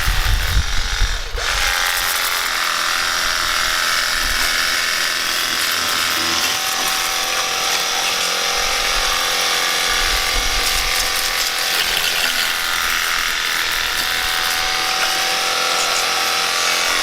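Cordless battery handheld pressure washer running steadily, its small pump motor whirring over the hiss of the spraying water jet, with a brief dip about a second in.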